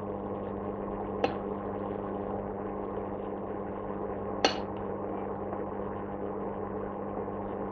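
Two sharp knocks of a spatula against a nonstick pan as stir-fried vegetables are scraped out into a bowl, one about a second in and a louder one midway. A steady low hum runs underneath.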